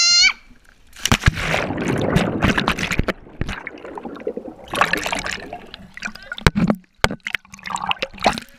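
A child's high shout cut short, then an action camera plunging into a swimming pool: a splash and muffled underwater bubbling and sloshing, with a few sharp clicks, and more splashing near the end as it breaks the surface.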